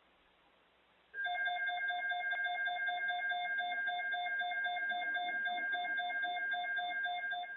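Emergency Alert System alert tone: an electronic alarm of several steady, pulsing tones held together. It starts suddenly about a second in and drops in level near the end, ahead of a tornado watch message.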